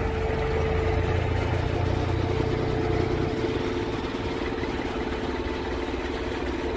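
Tube-Line in-line bale wrapper's engine and hydraulics running steadily while the machine pushes a round hay bale forward into the wrapping cycle: a constant hum with a steady whine on top. A deeper rumble is stronger during the first three seconds, then eases.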